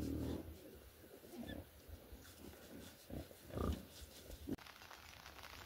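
Pigs grunting as they root through the forest floor: a few short, low grunts, the loudest about two-thirds of the way in. Near the end a steady hiss takes over.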